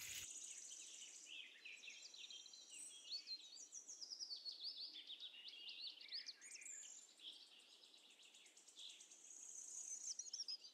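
Faint chirping of small birds, many short high chirps and trills overlapping, dipping for a moment just past the middle.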